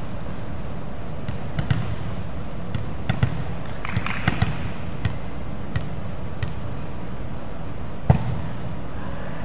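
A volleyball being hit and bouncing on a wooden gym floor: a string of irregular sharp smacks and thuds, the loudest about eight seconds in, over a steady low background hum.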